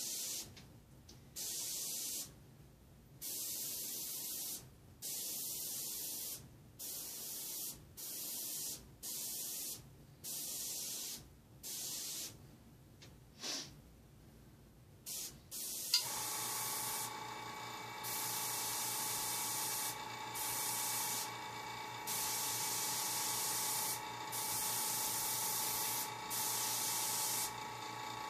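Airbrush hissing in short bursts of about a second, stopping and starting as the trigger is worked for fine outline lines. About halfway through, a click and a small air compressor starts running, adding a steady hum under the hisses.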